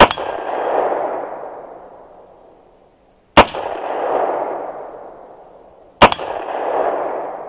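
Three rifle shots from a Windham Weaponry SRC AR-15 chambered in 7.62x39, about three seconds apart, each followed by a long rolling echo that fades over two to three seconds.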